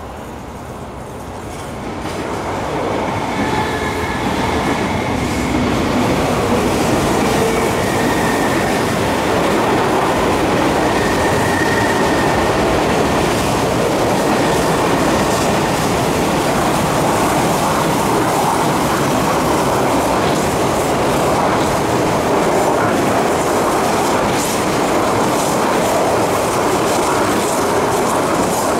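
East Rail Line electric multiple-unit train passing close by on curved track: a steady loud rumble and clatter of steel wheels on rail that builds over the first few seconds and then holds, with a faint high whine in the first half and sharper clicks near the end.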